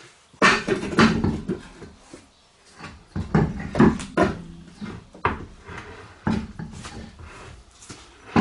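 Car wheel and tyre being worked onto the hub by hand: a run of irregular knocks, thumps and scrapes as the wheel is lifted and shuffled onto the studs.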